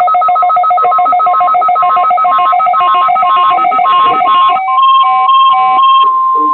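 Electronic weather radio alert tones: a fast warbling trill between two pitches, then a brief run of beeps at changing pitches, then, about six seconds in, the steady 1050 Hz weather radio warning alarm tone.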